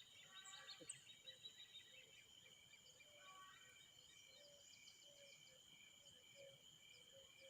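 Near silence: faint outdoor background with a steady high-pitched drone and soft chirps repeating about twice a second, like insects or small birds.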